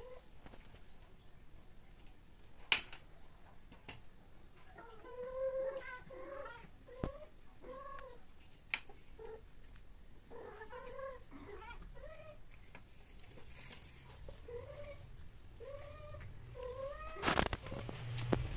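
Domestic cats in heat yowling during mating: short, wavering calls repeated in clusters of several. A few sharp clicks sound in between, and a loud burst of rustling comes near the end.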